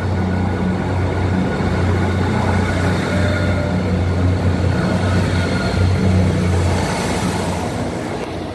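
Northern Class 158 three-car diesel multiple unit pulling away from the platform, its underfloor diesel engines running under power with a steady low hum. The sound eases off near the end as the train moves away.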